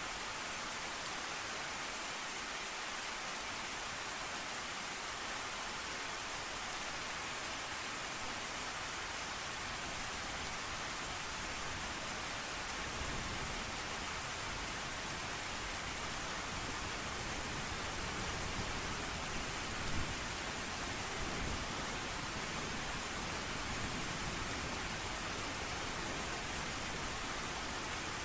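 Steady heavy rain, an even hiss of falling water. About halfway through, a low rumble of distant thunder builds underneath, with a brief swell near the end of the first two-thirds.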